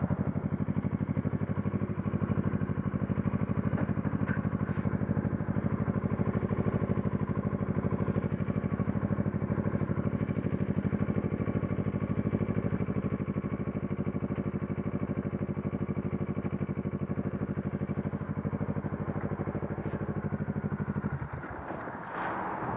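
Motorcycle engine idling with a steady, even beat, then shut off near the end.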